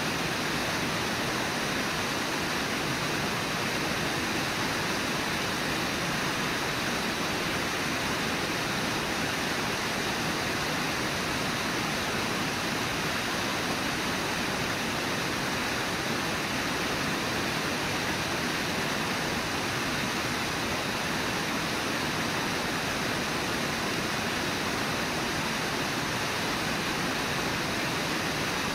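Steady rushing of the Brooks River's white water at Brooks Falls, an even hiss with no separate splashes standing out.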